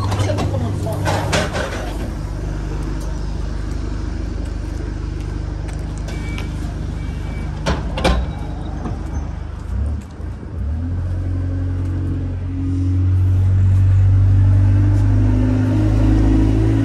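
Single-decker bus's diesel engine running at the stop, with a sharp knock about halfway through, then the bus pulling away: the engine grows louder and its pitch steps up as it accelerates.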